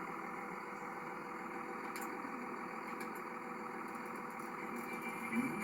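Steady in-cab drone of a 1998 Dodge Ram 2500's Cummins turbo-diesel inline-six idling, with the air-conditioning blower running.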